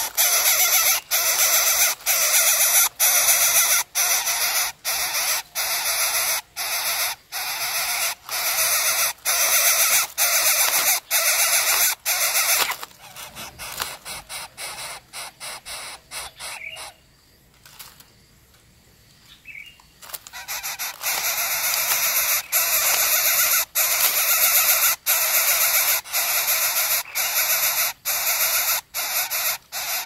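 Coucal nestlings hissing and rasping in a fast, steady series of harsh noisy calls. The chicks are begging at the nest while one struggles to swallow its food. The calls fade about two-thirds of the way through, stop for a few seconds, then come back just as loud.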